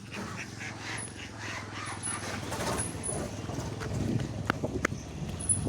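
A flock of ducks calling and moving about over a low steady rumble, with two sharp clicks about four and a half seconds in.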